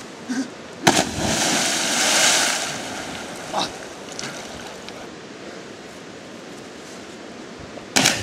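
A body hitting creek water from a rope swing: a sharp splash about a second in, then a couple of seconds of churning water. Near the end comes a second splash as another jumper lands.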